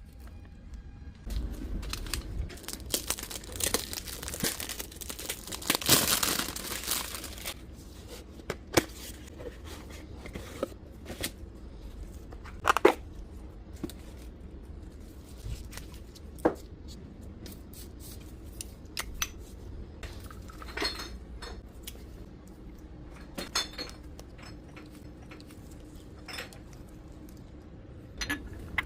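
Perfume packaging being unwrapped: several seconds of crinkling and tearing, then scattered light clicks, taps and clinks as the box and glass bottle are handled.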